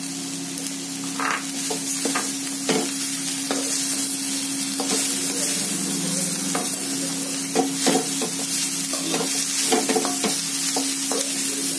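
Chopped vegetables sizzling in hot oil in a kadai while a slotted steel spatula stirs and tosses them, scraping and knocking against the pan every second or so.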